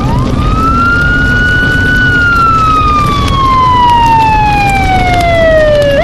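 Police siren wailing. The pitch climbs quickly, holds, then slides slowly down for about four seconds before climbing sharply again at the end.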